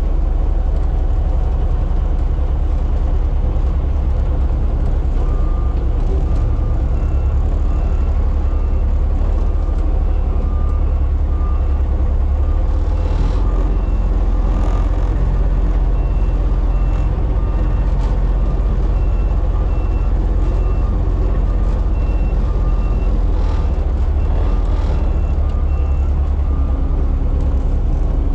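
Front-load garbage truck's diesel engine running steadily, with its backup alarm beeping about twice a second from a few seconds in until near the end while the truck reverses. A few brief hisses break in partway through.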